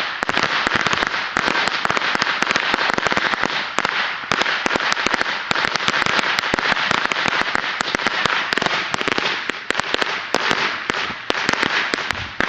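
Fireworks going off in a dense, unbroken run of sharp pops over a continuous crackling hiss, many reports a second.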